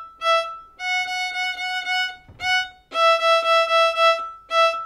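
Violin playing open E alternating with first-finger F sharp on the E string, each note in a run of short repeated bow strokes: E, then F sharp, then E again.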